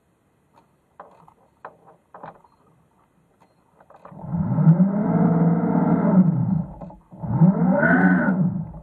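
Remotely operated vehicle's electric thruster motors running in two bursts, a whine with a low hum beneath it that rises in pitch as the thrusters spin up and falls as they slow; the second burst starts a moment after the first ends. A few faint clicks come before the first burst.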